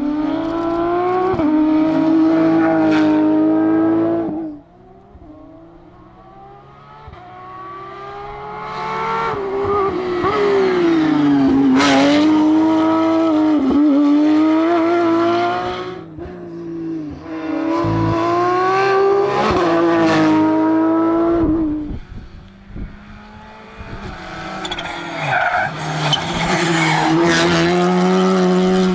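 Rally cars at full speed, engines revving hard with pitch jumping and dropping through gear changes, coming loud and fading several times over, with some tyre noise.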